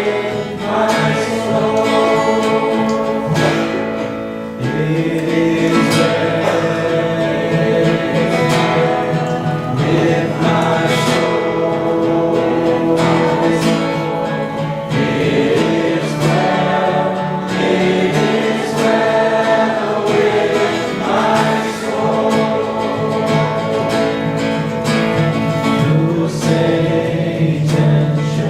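Church worship song: a group of voices singing together over guitar and band accompaniment.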